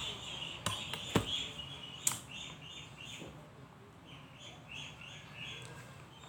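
Eating sounds with a few sharp clicks in the first two seconds, and birds chirping steadily in the background, fading toward the end.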